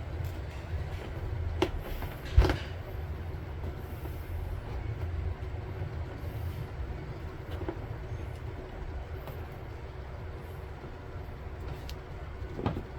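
Steady low background rumble with a few short sharp clicks, the loudest about two and a half seconds in and another near the end.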